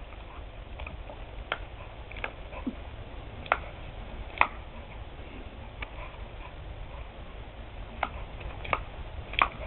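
A border collie snapping and biting at a stream of hose water: short sharp clicks and splats at irregular intervals, about eight in all, over a low steady rumble.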